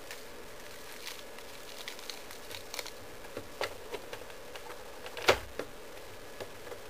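Irregular light plastic clicks and ticks from a hand-operated Lego garbage truck compactor as its packer mechanism is worked, with one sharper, louder click a little past the middle.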